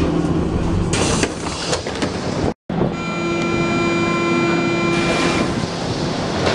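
Berlin U-Bahn F-type train stopped at a station, with a steady hum and a short hiss about a second in. After a brief cut, a steady high tone of several pitches sounds beside the standing train and stops about two and a half seconds later.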